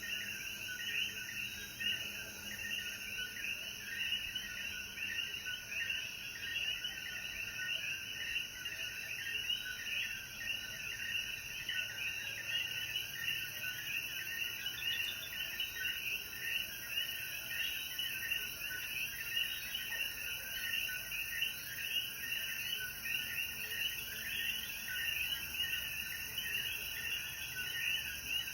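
Chorus of many coquí frogs calling, their short calls repeating rapidly and overlapping into a steady evening chorus after rain.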